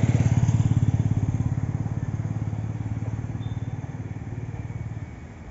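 Engine running with a fast, low throb, loudest at first, fading away and dropping off sharply about five seconds in.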